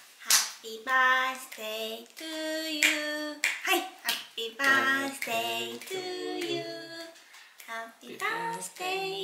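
A woman singing a slow tune in a high voice: a run of short phrases with held notes, broken by brief pauses.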